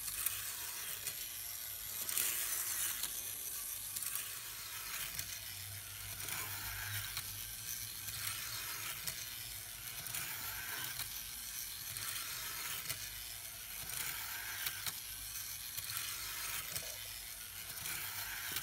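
N-gauge model motor unit driving a tiny bus round a tight oval of model track, with a steady high-pitched whir and the rattle of small wheels on the rails. The sound rises and falls about every two seconds, once a lap.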